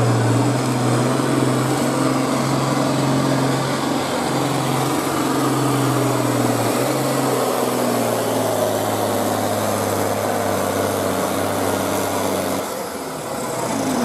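International Harvester 1086 tractor's turbocharged six-cylinder diesel running hard under load while pulling a weight-transfer sled. Its note drops a little in steps as the sled's load builds, then falls away about a second before the end.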